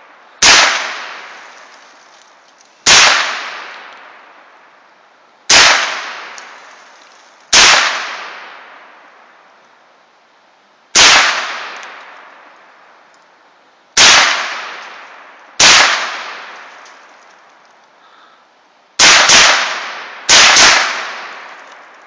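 A Colt AR-15 rifle chambered in .22 Long Rifle firing about eleven single shots at an uneven pace, each sharp crack trailing off in a long echo. The last shots come in two quick pairs near the end.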